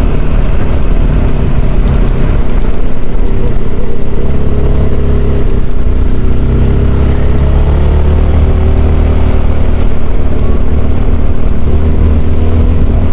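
Zontes motorcycle engine running steadily while riding, a low droning hum with wind rumbling on the microphone.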